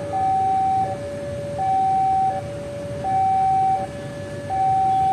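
Railway level crossing warning alarm sounding a repeating two-tone high-low signal, each tone held for about three quarters of a second, as a train approaches. A steady low rumble sits underneath.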